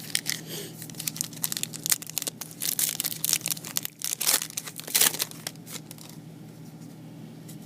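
Plastic trading card pack wrapper being torn open and crinkled by hand, with sharp crackles and rustles that die down about six seconds in.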